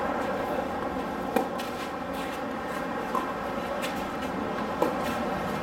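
Tennis ball struck back and forth by rackets in a rally: three sharp hits spaced roughly a second and a half to two seconds apart, the first and last the loudest, over a steady background hum.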